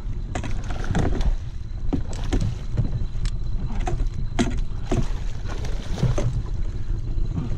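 Hooked musky thrashing and splashing at the surface beside the landing net, a string of short sharp splashes over a steady low rumble.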